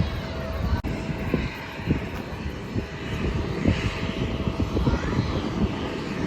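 Aircraft engine running steadily with a constant whine, under an irregular low rumble of wind buffeting the microphone.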